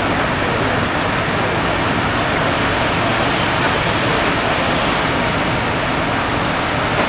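Fire engines running their pumps at a structure fire: a steady, loud rumbling rush with no breaks.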